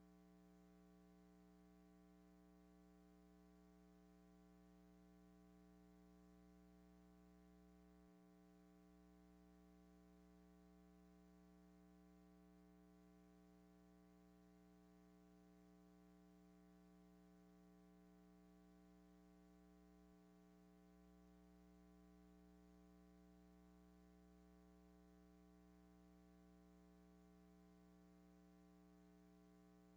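Near silence with only a faint steady hum: the silent film reel has no sound track.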